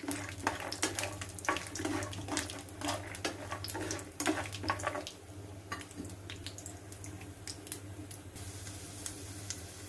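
Peanuts frying in shallow oil in a nonstick pan: a steady sizzle, with a slotted steel spoon scraping and clicking against the pan as the peanuts are stirred. The stirring stops about five seconds in, leaving a quieter sizzle.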